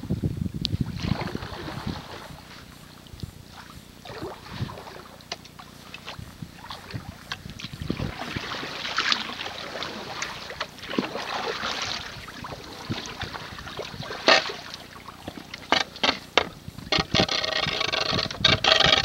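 Sea kayak being paddled: paddle blades dipping and splashing, with water dripping and lapping against the hull in an irregular rhythm, and a louder run of splashing near the end.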